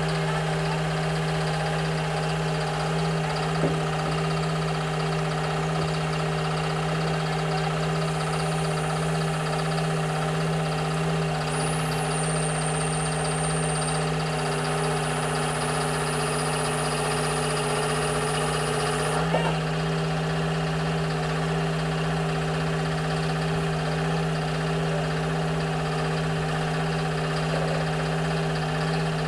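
Hy-Hoe 685B excavator's diesel engine idling steadily. A faint high whine comes in about a third of the way through and cuts off with a brief knock about two-thirds in.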